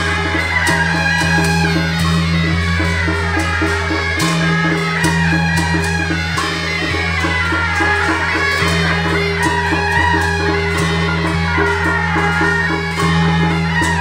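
Traditional temple-procession music with a steady percussion beat and a wavering melody over held bass notes that change every second or two.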